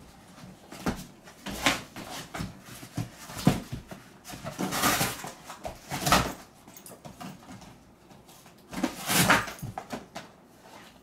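Cardboard box scraping and rustling as a dog paws and digs inside it, in a series of irregular noisy bursts.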